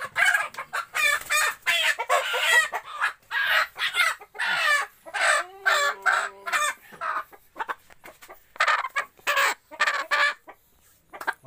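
A chicken squawking loudly in a rapid run of harsh calls as it is caught and held. The calls stop for a moment about seven seconds in, then start again and thin out near the end.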